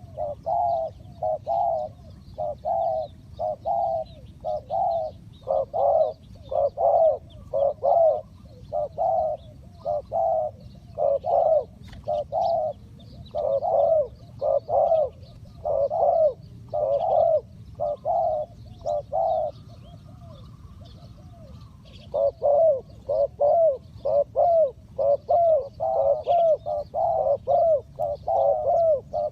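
Spotted dove cooing, a long run of short low coos at a little over one a second, breaking off briefly about two-thirds of the way through and then resuming. Faint high chirps of small birds sound behind it.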